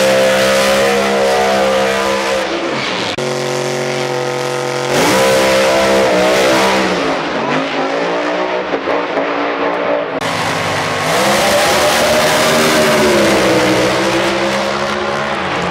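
Pro Mod drag-car V8 engines at high revs in several short clips that cut abruptly from one to the next, the note climbing, holding and falling off. In the first clip the rear tyres spin in a smoky burnout.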